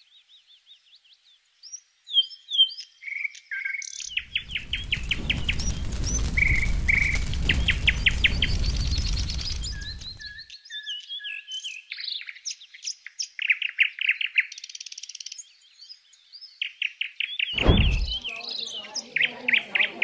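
Several songbirds chirping and trilling. Midway a rushing noise swells up and fades away over about six seconds, and near the end there is a brief low thump.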